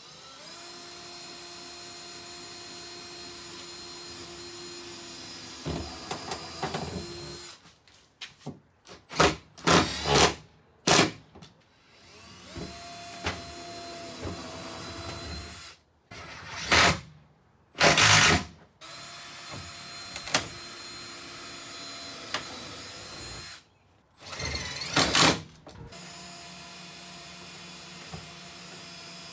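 Cordless power tools at work drilling and fastening a spoiler to a car's trunk lid: a drill runs steadily for several seconds at a time, broken by short, much louder bursts a few times.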